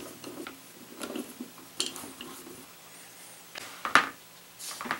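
Light metal clicks and scrapes of a Torx screwdriver working the cover screws of an old hard drive's metal case, then a sharp knock about four seconds in, the loudest sound, as the screwdriver is set down on the table.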